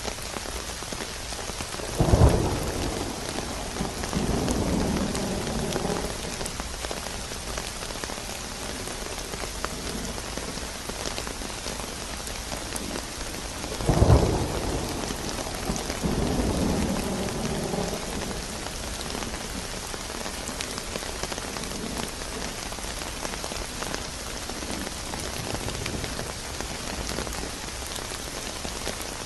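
Steady rain with two thunderclaps, about two seconds in and again about fourteen seconds in, each a sudden loud clap followed by a few seconds of rumble.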